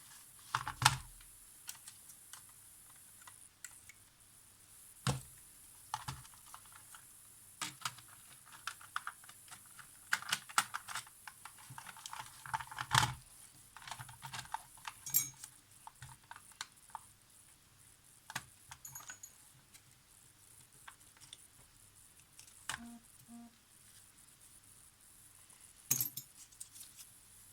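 Irregular small clicks, taps and clatters of hard little parts and tools being handled while a Polaroid SLR 680 instant camera is put back together, with the sharpest clicks about a second in, around thirteen seconds and near the end.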